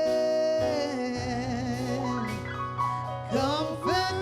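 Live worship song: a held sung note gives way to the band's accompaniment between sung lines.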